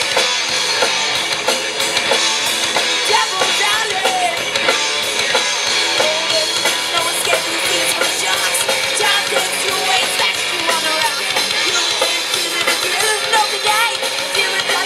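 Live rock band playing: electric guitars, bass guitar and a drum kit, with a young female lead vocalist singing over them.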